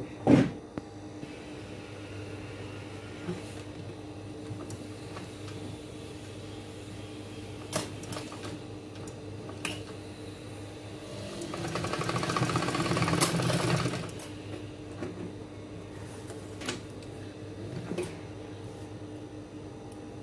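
Industrial sewing machine stitching one short run of about three seconds, roughly eleven seconds in. A steady low hum runs underneath, with a sharp knock near the start and a few light clicks as the work is handled.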